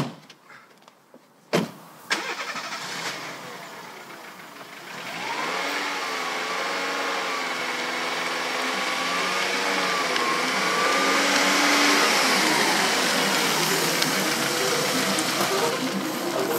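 A car door slams shut about a second and a half in, then a Volkswagen Polo's engine starts and runs, its pitch rising and falling as the car manoeuvres and pulls away.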